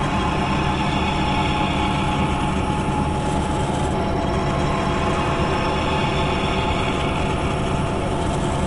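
Machinery running steadily: a continuous mechanical drone and rumble with a few steady hum tones, unchanging throughout.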